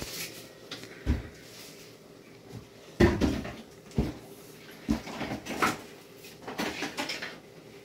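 Kitchen handling noise: about six separate knocks and clunks, such as a cupboard door and dishes being moved, with the loudest about three seconds in.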